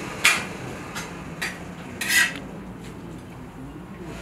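Metal skimmer scraping against the inside of a large plov kazan while turning and scooping the rice: about five short scrapes, the longest a little after two seconds in.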